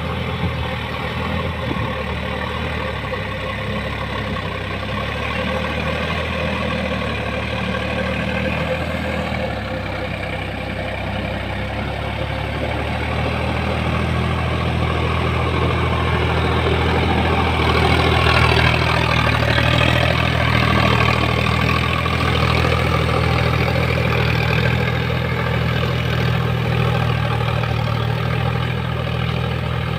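Sonalika 4x4 tractor's diesel engine running steadily while ploughing a muddy paddy field, growing louder from about halfway through as it comes nearer or takes more load.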